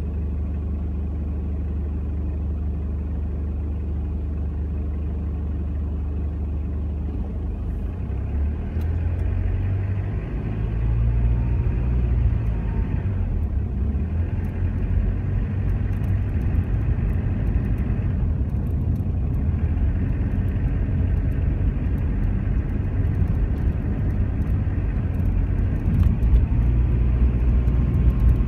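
Car engine idling inside the cabin while stopped, then pulling away about eight seconds in, with the low engine and road rumble growing louder as it drives on.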